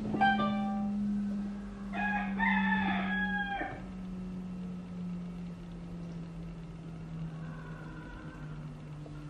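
A rooster crowing twice: a short call at the start and a longer crow about two seconds in. Under it runs a steady low hum that slowly drops in pitch.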